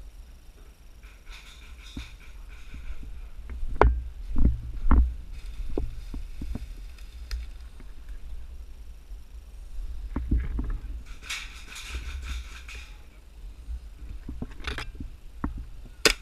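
Movement and handling noise on a body-worn GoPro action camera: a steady low rumble with scattered knocks and thumps, the loudest a few seconds in. There is a sharp click near the end.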